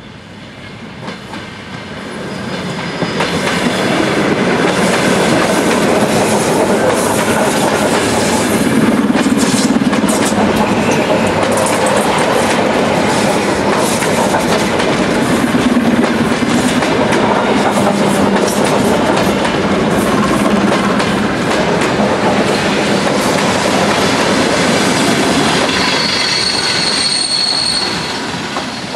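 Electric multiple-unit commuter train passing close by: the rolling noise builds over the first few seconds, then holds steady with repeated wheel clicks over rail joints. It fades near the end with a thin, high wheel squeal.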